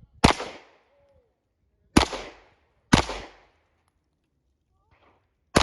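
Four handgun shots fired at an uneven pace, the second and third close together and the last near the end, each with a short echo tail: a competitor shooting a course of fire.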